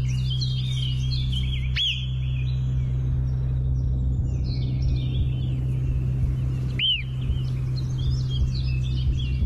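Small birds chirping and singing in a busy chorus, with two louder arching calls that rise and fall, about five seconds apart. A steady low drone runs underneath.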